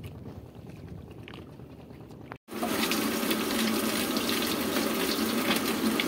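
Small whole fish frying in hot oil in a steel wok, a loud dense sizzle with crackling that starts abruptly about two and a half seconds in. Before it, quieter wind and water noise around a small boat at sea.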